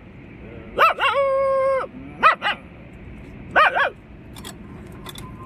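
A man imitating a dog, barking and yelping with his voice. A bark about a second in runs into a drawn-out held note lasting almost a second, followed by two short yelps and then a quick run of barks.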